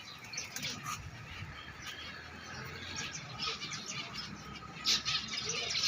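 Several birds chirping and calling, with a low cooing call near the end.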